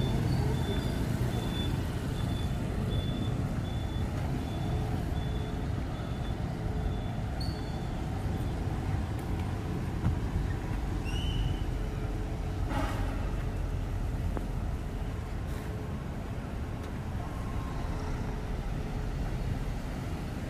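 Street traffic: a steady rumble of cars and motorbikes driving and idling close by. A high electronic beep repeats about twice a second and stops about eight seconds in.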